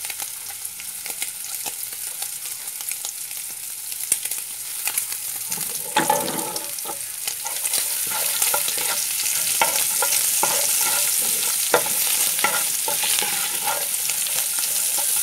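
Sliced garlic and diced bacon sizzling in oil in a pan, stirred with a wooden spoon that scrapes and taps against the pan; the sizzle grows louder about halfway through.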